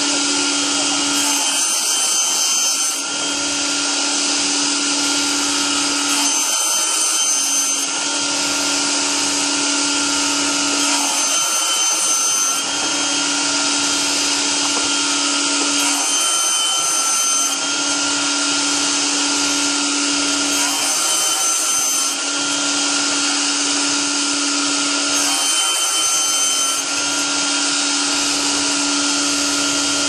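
Double-blade sliding-table sawmill running loud, its circular blades ripping a timber beam that is fed through by hand: a steady high whine over loud sawing noise, with a low hum that breaks off briefly every four to five seconds.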